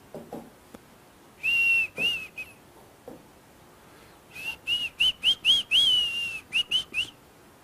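A person whistling short, high, breathy notes: two or three near the start, then after a pause a quick run of about nine, one of them held a little longer.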